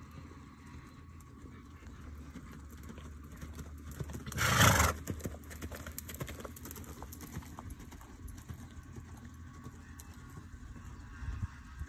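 Mare loping on soft arena dirt, her hoofbeats thudding softly. About four and a half seconds in, the horse gives a loud snort that lasts about half a second.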